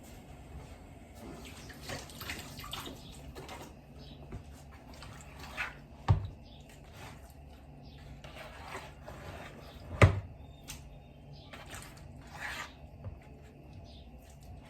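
Wet, squelching handling sounds as cold raw chicken pieces are dropped into a cooking pot by hand. Two sharp knocks against the pot come about six and ten seconds in, the second the louder.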